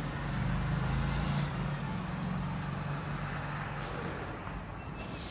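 Steady low background rumble with a hum that swells during the first two seconds. About four seconds in there is a faint scratch as a pencil is drawn along a plastic ruler on paper.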